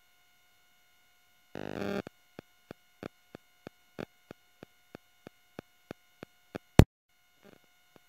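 A faint steady electronic whine with a short burst of noise, then a very regular run of sharp clicks, about three a second, ending in one much louder click.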